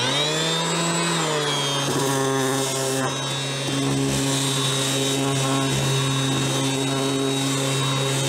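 Ryobi RROS18C 18V brushless random orbital sander switched up from first to second speed: its motor hum jumps up in pitch at the start and settles within about a second. It then runs steadily while sanding a wooden board.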